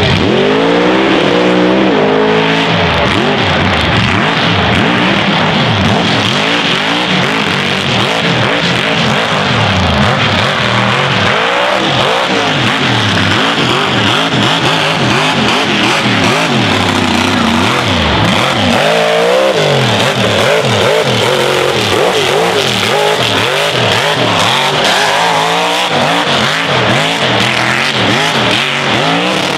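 A 2100-horsepower mega truck's engine revving hard as it runs through a mud pit. The pitch climbs and drops with the throttle, in strong surges near the start, about two-thirds of the way through, and again near the end.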